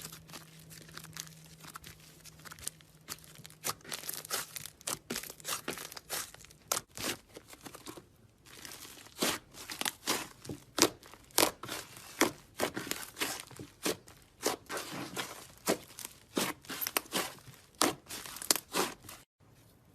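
Hands squishing and stretching slime: a dense, irregular run of sticky crackles and pops, with a short pause about eight seconds in, stopping suddenly just before the end.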